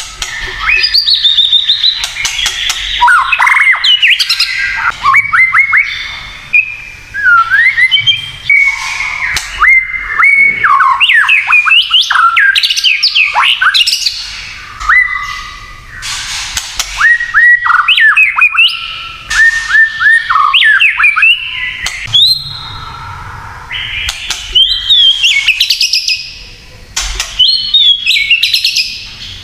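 White-rumped shama singing a loud, varied song. Quick whistled notes swoop up and down, broken by many sharp clicking and crackling notes (the 'kretekan'), with a couple of short pauses.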